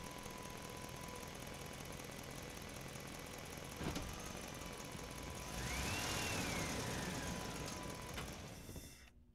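A steady engine-like running noise, growing louder around six seconds in with a short tone that rises then falls, and one click about four seconds in; it cuts off suddenly just before the end.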